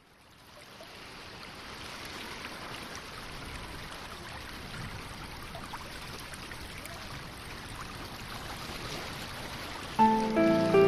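A steady rushing hiss like running water, fading in over the first two seconds and then holding even. Music starts near the end.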